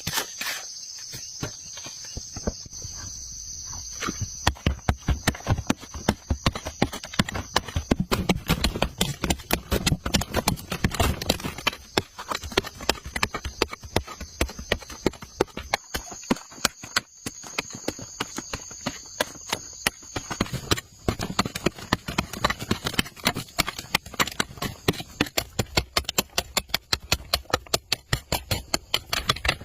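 Rapid, regular knocks, about two to three a second, beginning about four seconds in, with a steady high buzz of insects underneath at the start and again midway.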